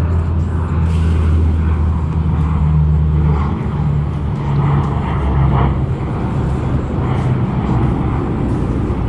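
Boat engine running steadily with a low, even hum, its pitch shifting slightly about three and a half seconds in.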